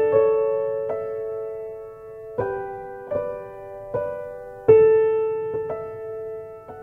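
Background music: a slow solo piano piece, single notes and soft chords struck about once a second and left to ring and fade.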